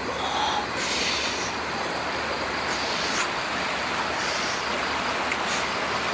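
A steady, even hiss, with a few faint ticks scattered through it.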